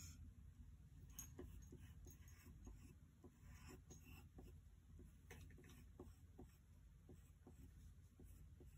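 Faint scratching of a pencil drawing on paper, in short irregular strokes, over a low steady hum.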